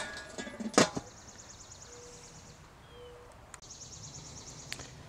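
Metal lid of a Weber Jumbo Joe charcoal kettle grill being lowered and set down, with a sharp clank at the start and another about a second in. Then a faint, high, rapidly pulsing trill comes twice in the background.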